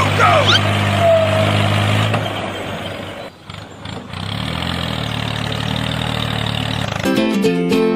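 A truck-like engine idling steadily. It fades out almost completely about three seconds in, comes back, and is replaced by music near the end.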